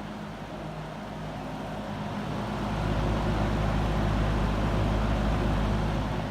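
McGraw-Edison-built Penncrest 20-inch metal box fan running on high with its blades reversed to the exhaust side: a steady rush of air over a low motor hum. It grows louder about two and a half seconds in, with a deeper rumble of moving air.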